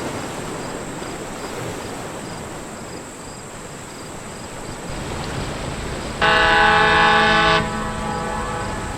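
Steady rushing noise with a low rumble building about five seconds in, then a single loud horn blast lasting about a second and a half.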